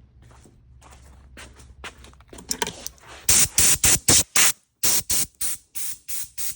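Quick, loud blasts of compressed air from an air-hose blow gun, about three short bursts a second, faint at first and loud from about three seconds in. The air comes through the compressor's newly replaced regulator, and the hose is delivering air properly.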